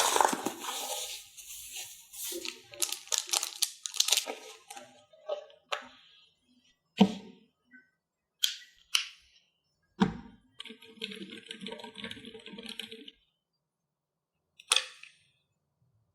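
Keyboard packaging being handled: rustling and rubbing for the first few seconds, then a series of separate sharp clicks and snaps, with a rasping stretch of about two and a half seconds in between.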